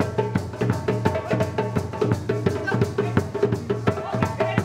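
Lively drum-led music: a fast rhythm of several drum strokes a second over steady low notes.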